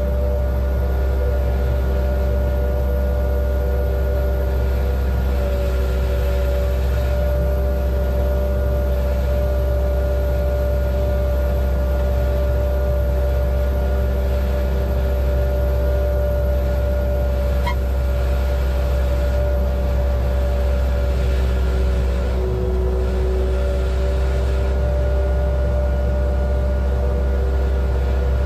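Towbarless aircraft tow tractor running steadily while moving an airliner, heard from inside its cab: a loud, deep engine rumble with a steady whine above it.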